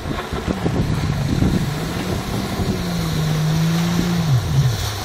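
Yamaha WaveRunner 1300 cc two-stroke jet ski engine running at a steady pitch as the craft rides in, its note falling near the end as it slows. Wind on the microphone throughout.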